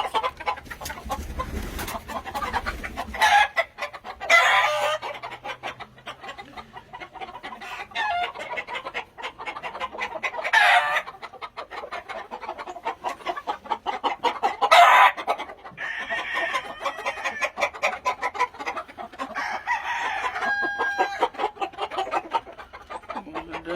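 Gamefowl roosters crowing several times, one after another, over steady clucking and chatter from many chickens.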